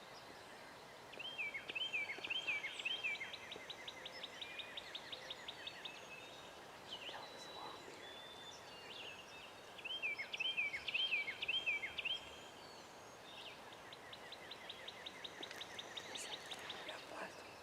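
Songbirds singing in the quiet morning woods. Twice, one bird sings a phrase of four sweeping notes, each time followed by fast, high trills.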